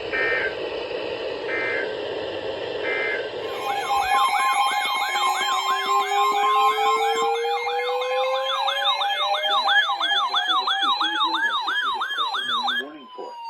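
Emergency alert signal: three short, buzzy digital data bursts over radio hiss, then layered electronic siren tones. These are a fast yelping sweep about twice a second, steady alert tones, and a slowly rising wail, all cutting off abruptly near the end.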